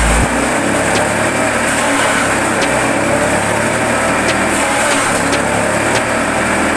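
Forage chopper running steadily with a motor hum while leafy branches are fed in, with sharp cracks every second or so as the stems are cut.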